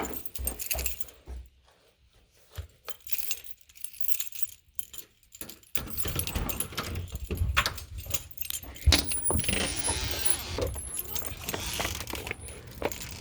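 A bunch of keys jangling and clicking as they are picked up and handled. About six seconds in, a steady rushing noise with a low rumble sets in.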